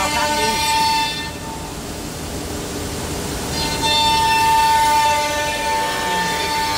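CNC router spindle cutting solid wood, a steady high whine with a noisy hiss under it. The whine fades about a second in and comes back strongly just before the four-second mark.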